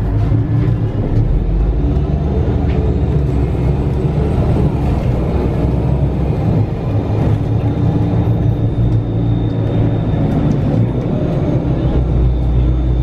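Mercedes-Benz Citaro G articulated CNG bus under way, heard from inside the cabin: the natural-gas engine and ZF automatic gearbox pulling with a steady low rumble. A thin high whine joins in about four seconds in.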